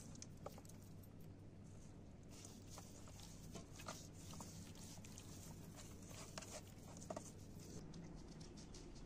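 Faint handling sounds of hands rubbing spice into a raw whole chicken in a stainless steel pot: soft rubbing with scattered small clicks and taps, over a low steady hum.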